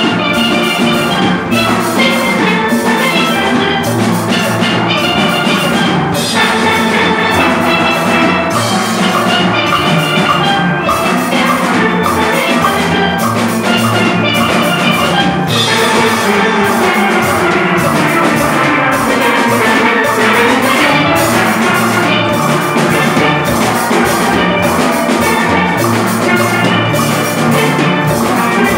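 A school steel orchestra playing: many steel pans ringing out melody and chords together over bass pans and a drum kit, a steady rhythmic groove without a break.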